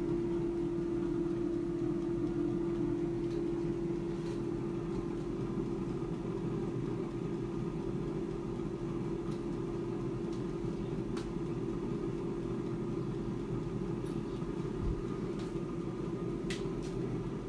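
Klarstein AeroVital air fryer running mid-cook, its fan giving a steady hum with one low tone. A couple of faint clicks sound over it.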